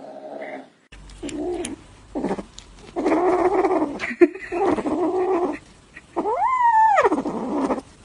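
A cat meowing and yowling in a string of drawn-out calls, two of them near the end rising and then falling in pitch.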